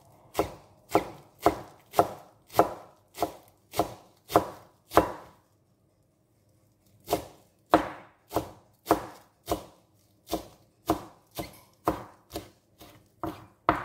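Kitchen knife chopping coriander leaves on a cutting board: steady knocks about two a second, with a pause of nearly two seconds midway before the chopping resumes.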